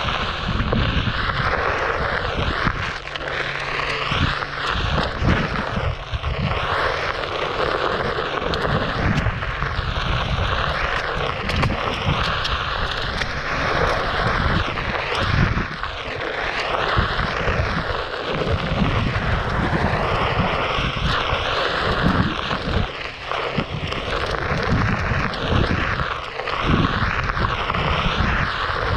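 Wind buffeting the microphone and tyre rumble from a Onewheel Pint electric board ridden over a dirt trail, with a rushing hiss that sweeps up and down in pitch.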